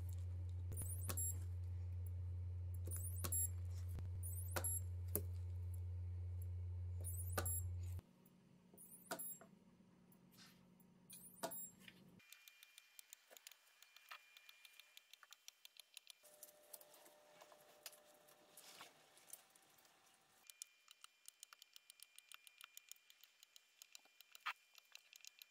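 K-Weld battery spot welder firing on nickel strip over lithium-ion cells: sharp snaps about once a second over a steady low hum. About eight seconds in the hum stops, leaving only faint scattered clicks of handling.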